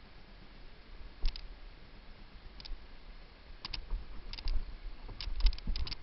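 Fishing reel clicking in short irregular pairs while a hooked fish is being played, with soft low thumps; the clicks come more often in the second half.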